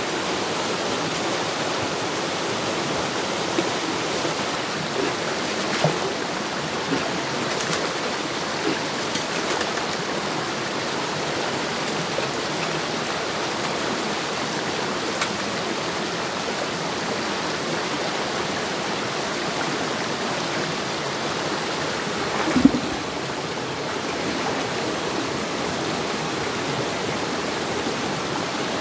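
Mountain stream rushing and cascading over rocks, a steady, even rush of water. A few light knocks come in the first third, and a single louder thump or splash about three-quarters of the way in.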